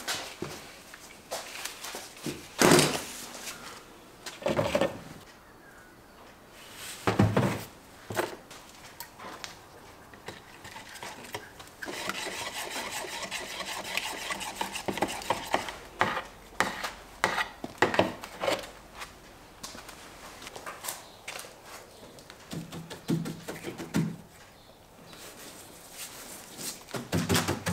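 Workshop handling noise: cups, tins and tools knocking and clattering on a bench, then a few seconds of steady scraping as resin is stirred in a plastic cup, followed by more scattered knocks.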